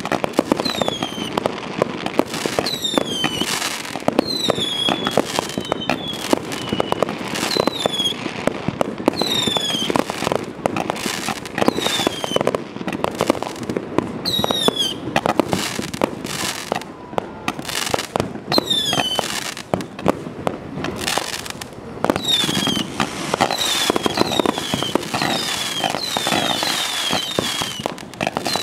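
A 500-shot consumer firework cake firing continuously: rapid launch thumps and cracks with no pause, and on many shots a short high whistle that falls in pitch.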